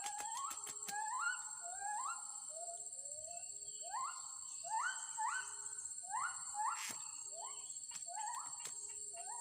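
A chorus of many short calls overlapping, each rising then holding, repeated several times a second. Behind them is a steady, high insect drone.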